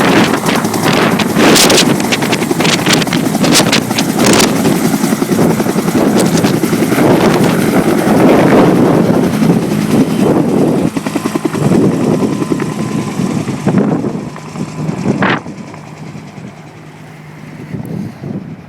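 Bell UH-1H Huey helicopter's two-blade main rotor slapping over its turbine engine, loud at first, then fading away over the last few seconds as the helicopter moves off.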